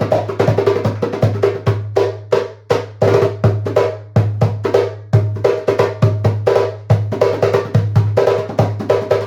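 A 10-inch Meinl djembe with a synthetic head played by hand in a fast, steady rhythm, mixing deep bass strokes with ringing tones and sharp slaps, several strokes a second.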